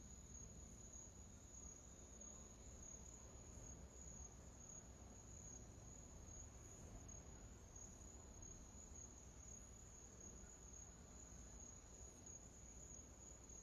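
Near silence with a continuous high-pitched insect trill, like crickets, over a faint low hum.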